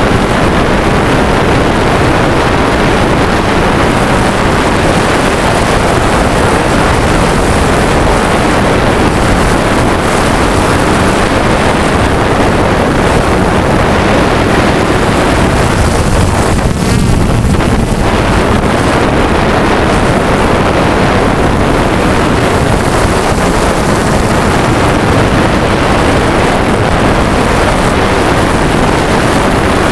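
Quadcopter drone's propellers running steadily, with wind noise on the onboard camera's microphone. The sound briefly thins out a little past halfway.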